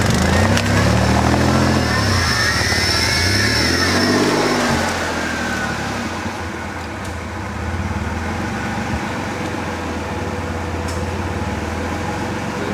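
Off-road 4x4's engine revving up and down in several hard bursts as the vehicle works through deep mud, then settling into steadier, lower running about five seconds in.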